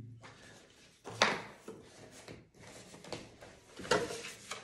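Printed leaflets and papers rustling as they are handled and shuffled, with a sharper crackle about a second in and another near the end.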